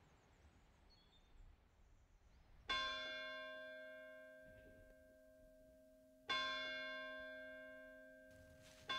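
A single church bell struck three times, about three seconds apart. Each stroke rings out and fades slowly, and the third comes right at the end.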